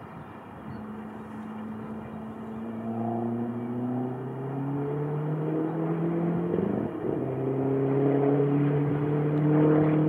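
Motor vehicle engine accelerating and getting louder, its pitch rising slowly, dropping sharply about seven seconds in as if changing gear, then rising again.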